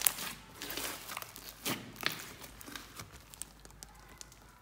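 Hands kneading and squeezing glossy glitter slime: irregular wet crackling and popping, with the sharpest pops at the very start and about two seconds in, thinning out toward the end.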